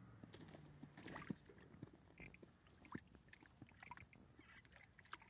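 Faint scattered ticks and small splashes of a hand working in the water of an ice-fishing hole while landing a fish.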